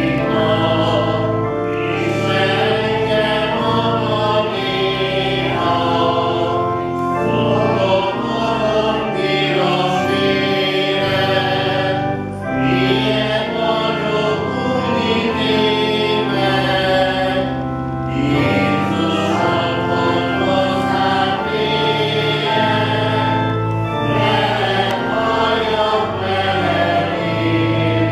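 Voices singing a Hungarian church hymn with organ accompaniment, held chords under the melody line.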